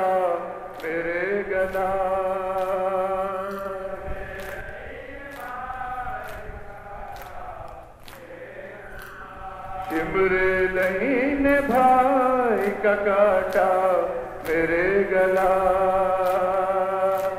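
Men chanting a noha, a Shia lament, with one lead voice on microphone and the group singing along, over a steady beat of sharp slaps from chest-beating (matam). The chant sinks quieter in the middle and swells again about ten seconds in.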